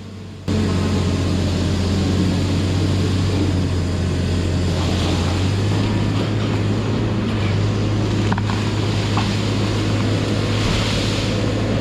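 Hot saw, a feller buncher with a continuously spinning disc saw head, running hard in a steady, loud, even machine drone with a deep hum. The sound starts abruptly about half a second in.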